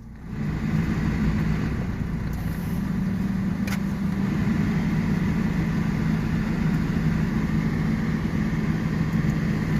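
Nissan Sentra's engine catching about half a second in and then running at a steady idle. It is the sign that the crank-but-no-start fault is fixed after work on its old fuel pump.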